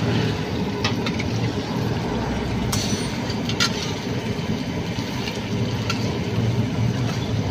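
A metal spatula clinks and scrapes against a steel karahi of curried minced meat a few times, over a steady low rumble.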